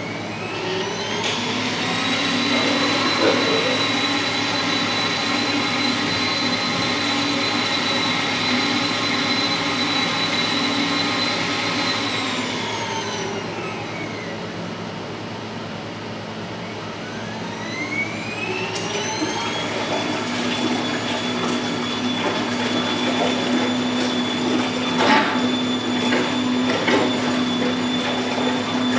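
Electric ROV thruster running in a water tank: its motor whine rises to a steady high pitch, holds for about ten seconds, then winds down. After a short lull it spins up again and runs steady, with water churning and a few sharp clicks near the end.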